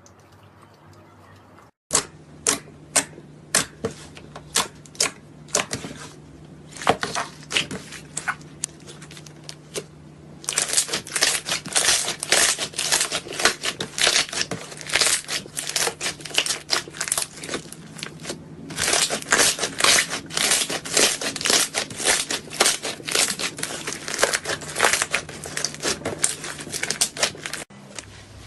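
Slime being squeezed and pressed by hand, making a run of sharp crackling pops and clicks. It starts about two seconds in, is sparse at first and turns dense from about ten seconds in, over a faint steady hum.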